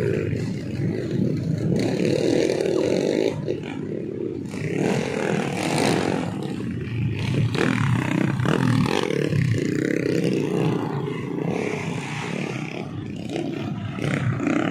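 Motocross dirt bike engines revving and riding past, the engine note rising and falling, with one bike passing close about halfway through.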